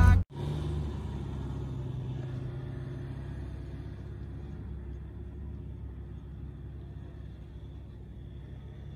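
A Mahindra Scorpio SUV's engine running as it drives off across soft sand dunes: a steady low rumble that slowly fades as the vehicle pulls away.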